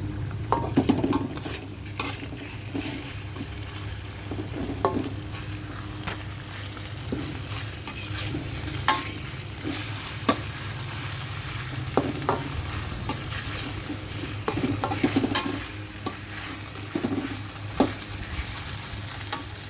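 Pork-belly slices sizzling in hot oil in a wok with garlic and onions, with a spatula scraping and clicking against the wok as they are stir-fried. A steady low hum runs underneath.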